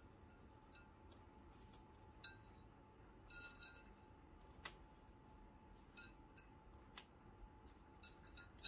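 Faint scattered taps and clicks of kitchen prep over low room tone: a knife touching the counter and pieces of rolled lavash set down into a glass baking dish.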